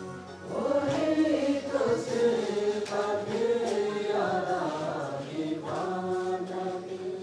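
Mixed choir of women and men singing a chant-like song together, ending on a long held note that fades near the end.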